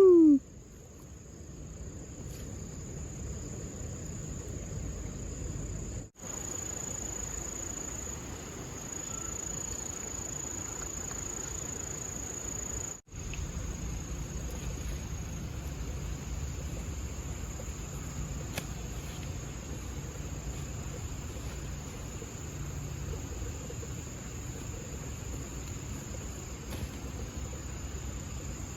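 A chorus of insects trilling in one steady high pitch, with a low rumble underneath. The sound drops out completely twice, briefly.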